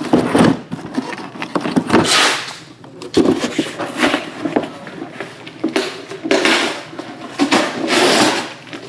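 Cardboard being handled: a shipping case lifted off a stack of cardboard card boxes, then a run of scraping, sliding swishes as the cardboard is moved about, about six of them.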